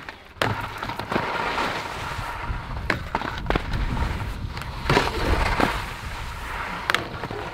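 Skis scraping across snow, with several sharp clacks.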